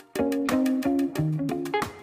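Background music: a guitar playing plucked notes in a rhythmic phrase that starts just after the beginning, with a lower note entering about midway.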